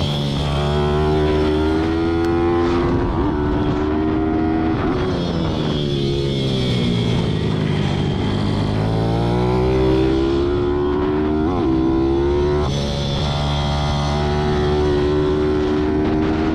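Pit bike's single-cylinder four-stroke engine at race pace, heard from on board. The revs hold high, fall away over a few seconds around the middle as the bike goes through a corner, climb back, then dip briefly once more before rising again.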